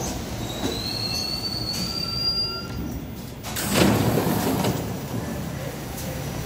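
New York City subway train of R68A cars braking to a stop with a high, slightly rising wheel squeal over the running rumble. About three and a half seconds in, the doors slide open with a loud rush of noise.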